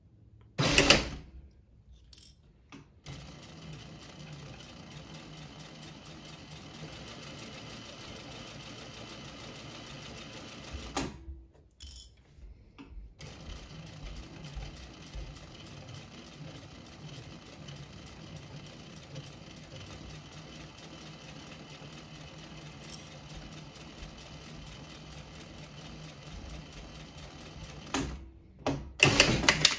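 Sewing machine stitching a long straight seam, running steadily, pausing briefly about a third of the way through, then running on again. A sharp knock comes just before it starts, and a few knocks follow when it stops near the end.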